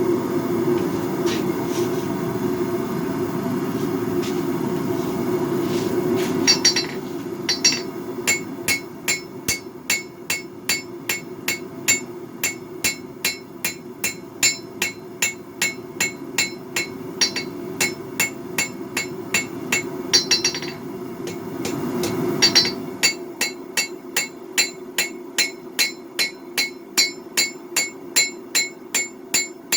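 A hand hammer strikes hot twist Damascus steel on the anvil, drawing out a knife blade, at about two blows a second, each with a bright metallic ring. The blows come in two runs with a short pause about two-thirds of the way through. Before the first run there are a few seconds of steady rushing noise from the forge.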